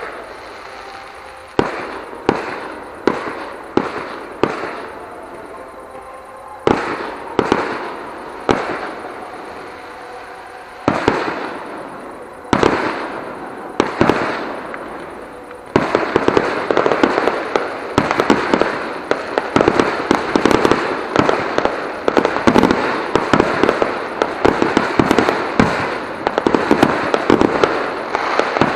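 Aerial firework shells bursting at a distance: single bangs every second or so, each trailing off in a rolling echo. About sixteen seconds in, this turns into a dense, continuous barrage of rapid bangs and crackling.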